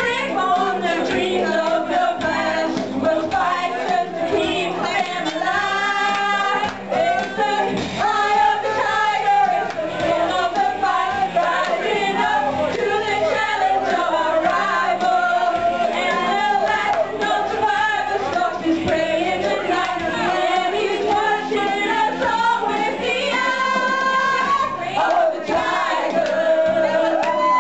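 A group of people singing together in a karaoke sing-along, several voices at once over music, without a break.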